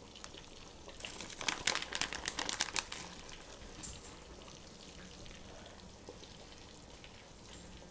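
Shredded marbled cheddar being sprinkled over a casserole: a light, crisp crackling patter lasting about two seconds, starting about a second in, then only faint room hiss.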